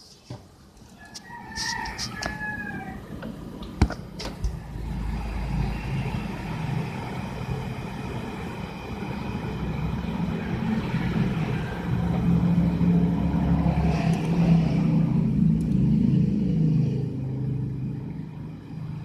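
A rooster crows briefly about a second in. Then a steady low mechanical rumble builds and runs on, easing off near the end.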